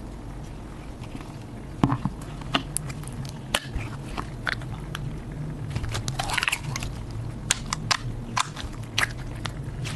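Slime being squeezed and pressed by hand, giving scattered sharp clicks and crackles.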